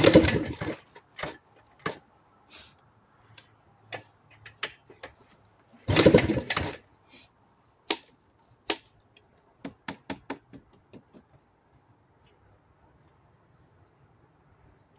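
1990 Yamaha YZ490 single-cylinder two-stroke dirt bike being kicked over: two kicks about six seconds apart crank the engine without it catching, with sharp clicks and knocks from the kick lever and bike in between. The engine turns over but will not run after a month of sitting.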